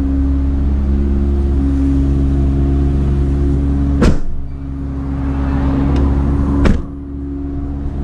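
Two solid slams of a VW Transporter's rear barn doors being shut, about two and a half seconds apart, over a steady low machine hum from the running van, which gets quieter after each slam.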